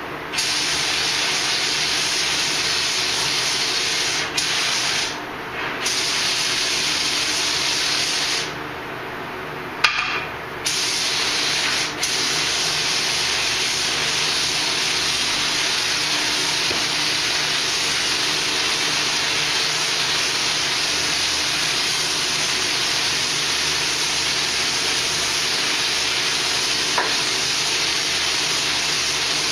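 Paint spray gun hissing steadily while spraying. The trigger is let off about 4 seconds in and again about 8 seconds in, then held for the rest. A faint steady hum runs underneath.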